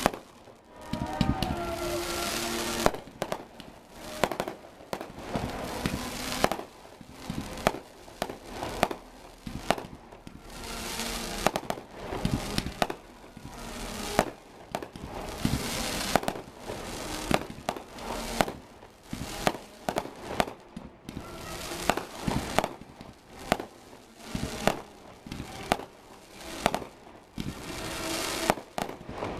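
Fireworks display: aerial shells launching and bursting in quick succession, sharp bangs one or two a second mixed with crackling.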